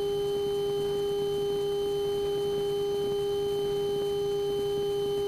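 Steady, even hum in the cockpit of a Piper Lance in cruise flight, one unchanging drone with no rise or fall.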